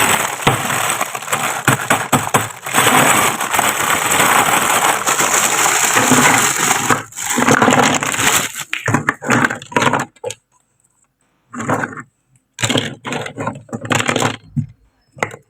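Plastic toy packaging crinkling and crackling as it is handled and unwrapped: a dense, continuous crackle for the first eight seconds or so, then short separate bursts with pauses between them.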